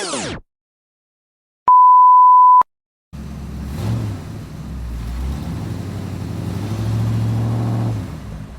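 A steady pure beep lasting about a second, the censor bleep tone. After a short silence comes about five seconds of a low, rumbling engine-like sound that grows louder near the end and then fades.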